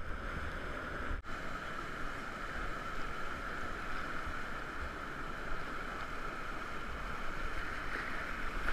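Steady rushing of whitewater rapids churning close around a kayak.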